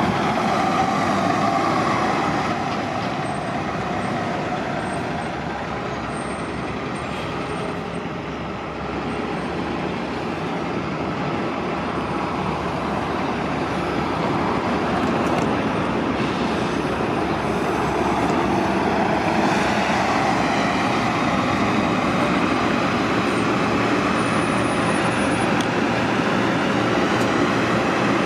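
Transit buses running and moving at a bus terminal: a steady rush of engine and traffic noise that eases off a few seconds in and builds back up after about ten seconds.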